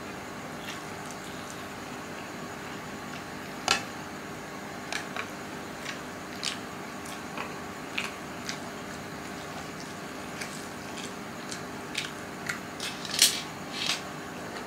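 Eating instant noodles from a pan: short clicks of metal tongs and a plastic rice ladle against the pan and each other, scattered through with chewing between. The loudest clicks come about four seconds in and in a cluster near the end.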